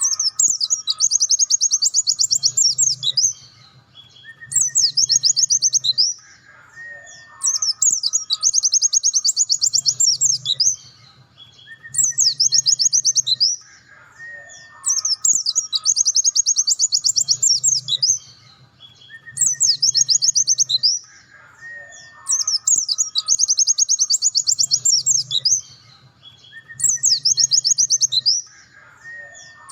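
A white-eye (pleci) singing its fast, high-pitched trilling 'nembak' song. The bursts last two to three seconds and come about every seven and a half seconds, each led by a short lower whistled note.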